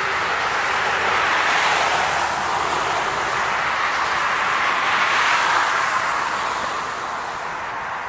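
Freeway traffic: steady tyre and road noise from passing vehicles, swelling twice as vehicles go by, about two seconds in and again around five and a half seconds.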